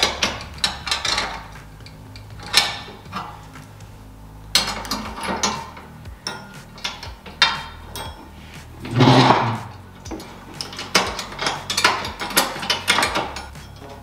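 Hand wrenches clicking and scraping on steel bolts and lock nuts as they are snugged up, a string of irregular metallic clicks and ticks, with a louder clatter about nine seconds in.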